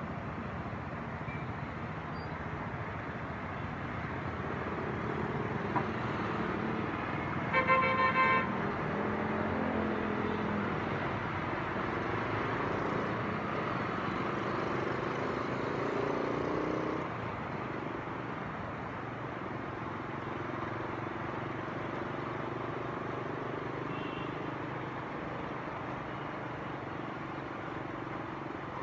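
Steady road and engine noise of driving in city traffic, with a car horn sounding in a short burst about eight seconds in.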